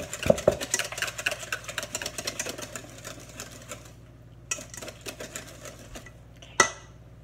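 Spoon stirring pumpkin pie filling fast in a stainless steel mixing bowl, a rapid run of clicks and scrapes against the metal. After about four seconds it slows to a few light taps, and there is one sharp clank near the end.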